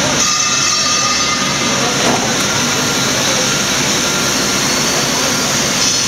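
Two-ply single facer corrugating line running: a steady, loud mechanical din from the rollers and board conveyor as the paper feeds through.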